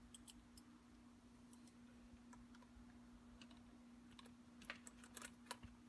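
Near silence: scattered faint clicks of a hand nut driver and small parts being handled, a little busier near the end, over a faint steady hum.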